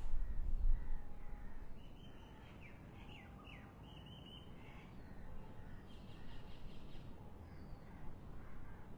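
Birds calling in the open air, a run of short chirps a couple of seconds in and a harsher cawing call later on. A low rumble, like wind on the microphone, is loudest in the first second or two.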